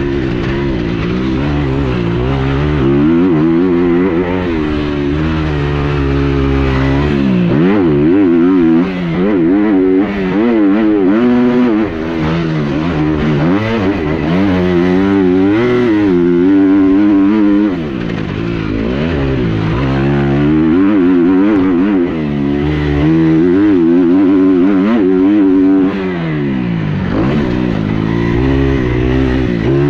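Motocross bike engine being ridden hard, revving up and backing off again and again, its note climbing and dropping every second or two.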